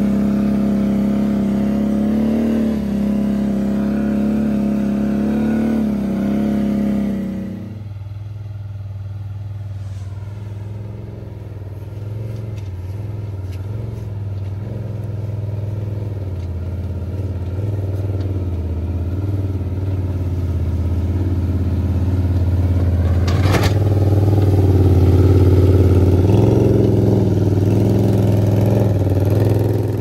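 ATV engine running as it pushes snow with a front-mounted plough blade. It sounds close at first, then drops to a lower, quieter hum after about seven seconds and grows louder again toward the end. A single sharp knock comes about two-thirds of the way through.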